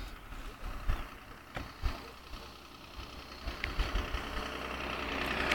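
Car engines idling at low level, with low thumps of wind buffeting the phone microphone and a few clicks; near the end an engine grows steadily louder.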